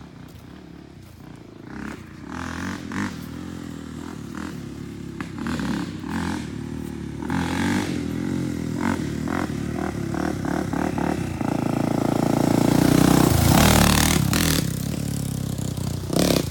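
Honda 400EX ATV's single-cylinder four-stroke engine, just rebuilt, running and being throttled up. It grows louder about twelve seconds in as the quad is ridden off, and there are scattered knocks and clatter along the way.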